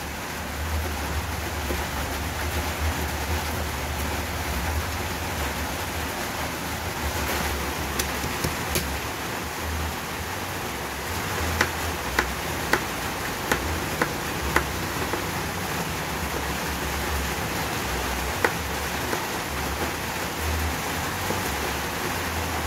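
Steady hiss of rain, with sharp knocks of a cleaver blade on a plastic cutting board as vegetables are chopped: a couple a third of the way in, a quick run of about six around the middle, and one more later.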